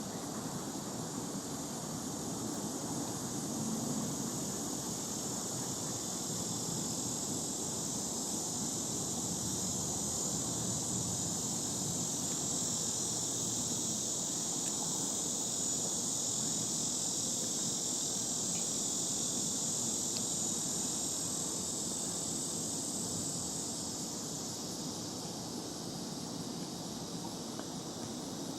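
A steady, high-pitched chorus of summer insects droning without a break, swelling through the middle and easing off near the end, over a faint low rumble.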